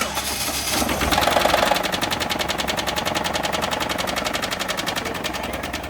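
Chevy HHR engine running with a rapid, steady knocking: rod knock from a worn connecting-rod bearing, with syrup and gravy poured into the oil to try to quiet it. The sound comes on suddenly and swells about a second in.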